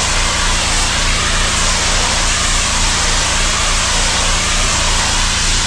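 Gas-engine pressure washer spraying, washing concrete off: the engine runs steadily under a loud, even spray hiss.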